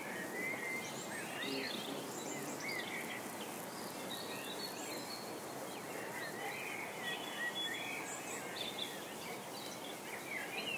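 Outdoor ambience: many short chirps of small birds over a steady background hiss.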